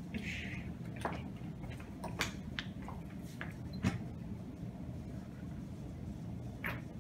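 A handful of light clicks and knocks from small lab equipment being handled, the sharpest a little under four seconds in, over a steady low room hum.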